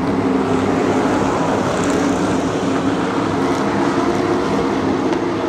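A vehicle engine running at a steady speed, a continuous drone that holds one pitch.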